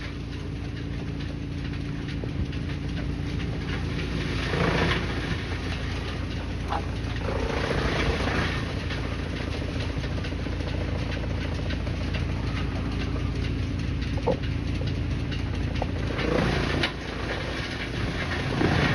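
Wood-chipping machinery running with a steady low rumble and hum. It surges several times into louder rushing, grinding bursts.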